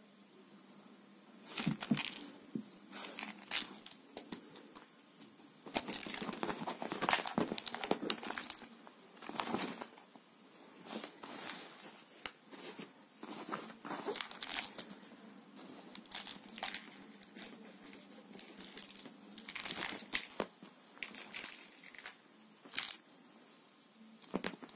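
Irregular rustling and scuffing of a fabric sofa cover as a cat pounces on and wrestles with a furry toy mouse, starting about a second and a half in, with the loudest flurry around six to eight seconds in.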